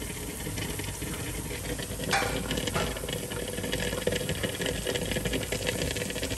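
Food sizzling and crackling as it fries in a pan, with two short knocks about two seconds in.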